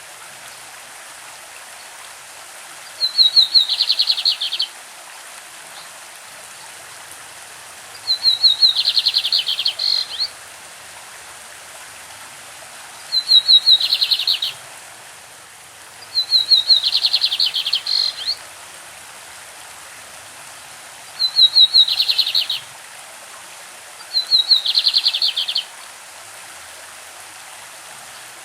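Lined seedeater (bigodinho) singing its classic song: six phrases, each a rapid run of notes lasting under two seconds, a few seconds apart. A stream runs steadily behind it.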